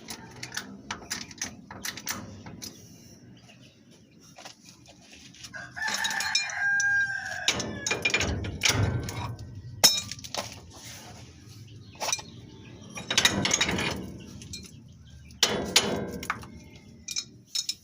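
A rooster crowing several times, the first call held about six seconds in. Scattered sharp clicks and knocks run underneath.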